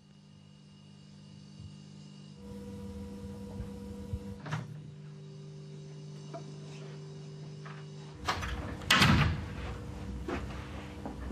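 Low steady hum of room tone, then a short, loud scraping knock about nine seconds in, with a few lighter clicks around it.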